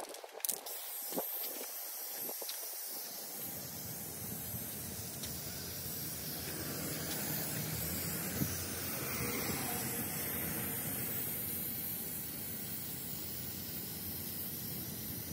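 Aerosol spray paint can hissing in a long, continuous spray, laying white paint along a strip between masking tape.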